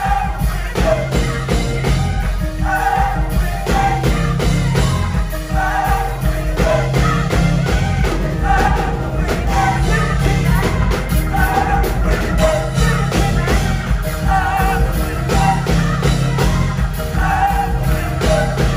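Gospel choir singing a short refrain over and over, backed by a live band with drums and a steady bass line.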